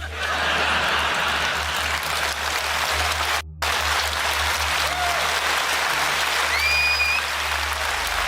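Audience applauding, with a brief break about three and a half seconds in and a short rising whistle near the end.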